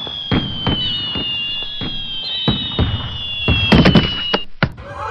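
Fireworks going off: a string of sharp bangs at uneven intervals, bunched together near the end, over long whistles that slowly fall in pitch.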